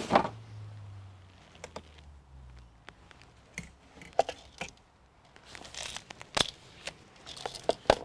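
Someone rummaging through small parts in plastic packaging: crinkling plastic with scattered sharp clicks and taps, with a short burst of rustling about three quarters of the way in.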